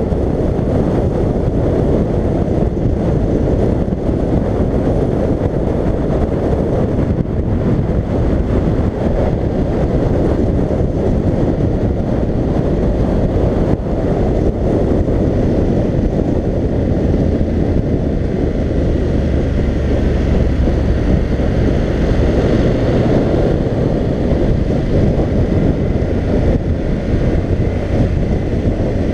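Steady rush of wind buffeting a helmet-mounted camera at riding speed, with a BMW F750GS motorcycle's engine and tyre rumble underneath, running at an even pace without sharp changes.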